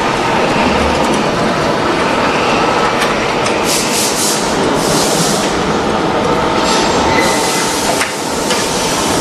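Plywood-line log conveyor running: a chain conveyor clattering steadily as it carries a log, over a steady machine hum, with a few short bursts of hiss about halfway through.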